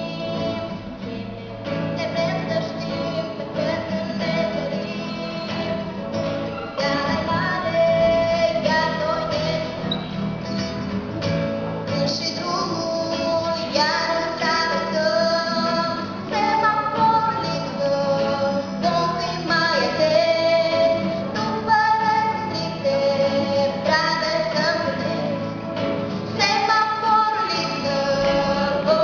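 Young girls singing a song to acoustic guitar accompaniment.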